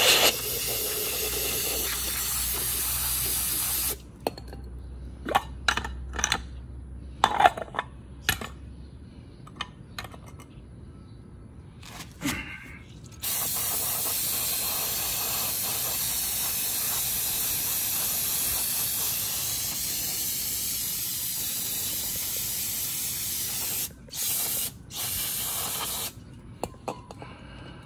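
Aerosol can of parts cleaner spraying in long hissing bursts onto a removed throttle position sensor and idle air control valve. One burst runs for the first few seconds, then about nine seconds of scattered clicks and taps of handling. A long burst of about ten seconds follows, then two short bursts near the end.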